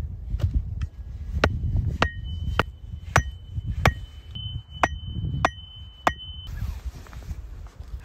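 An axe pounding a wooden stake into the ground: about ten sharp blows, roughly one every half second, most with a short metallic ring from the axe head. The blows stop about six seconds in.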